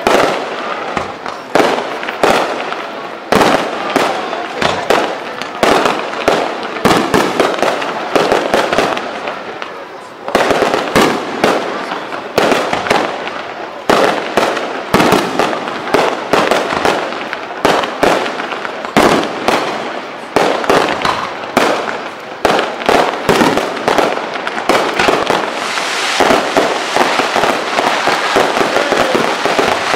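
Fireworks display: a rapid run of bangs from bursting shells, several a second, thickening near the end into a denser, more continuous crackle as ground fountains and shells fire together.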